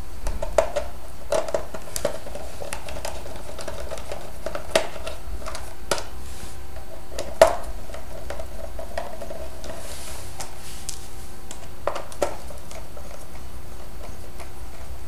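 Scattered light metallic clicks and clinks of tools and screws as an aluminium-framed electronic display panel is opened up. The sharpest click comes about halfway through, over a steady low hum.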